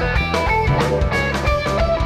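Live rock band playing an instrumental jam: an electric guitar plays a lead line of held notes over bass guitar and a drum kit.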